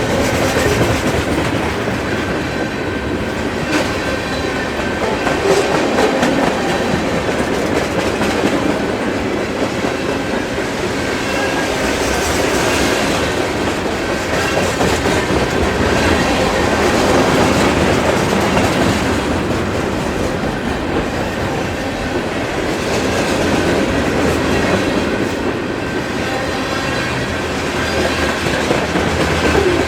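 Freight train rolling past, its wheels clicking steadily over the rail joints, with a faint thin squeal from the wheels on the rails.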